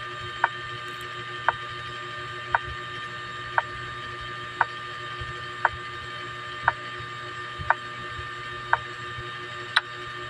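A sharp mechanical tick repeating evenly about once a second over a steady humming machine drone; the last tick is brighter.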